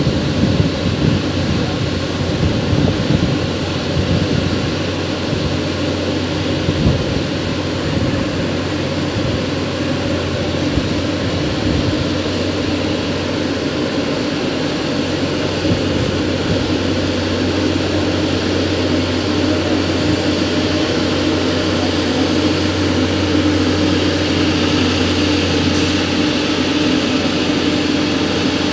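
Diesel engine of a Plasser PBR-400 R ballast regulator running steadily under load as the track machine works along the rails: a loud, constant engine drone with a steady hum, rougher and more uneven in the first ten seconds or so.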